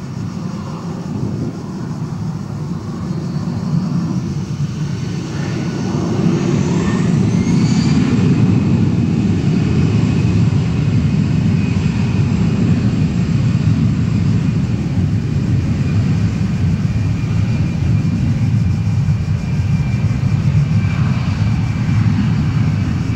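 Airbus A319 jet engines spooling up for takeoff: a whine rising in pitch while the sound grows louder over the first eight seconds, then a steady loud jet noise at takeoff thrust as the aircraft accelerates down the runway.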